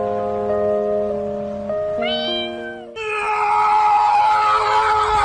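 Background music with held notes, and a short meow-like cry about two seconds in. From about three seconds a louder, wavering animal cry sets in.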